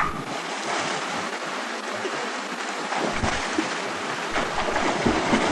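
Steady rush of water from a small waterfall pouring into a pool, with a few faint low thumps in the second half.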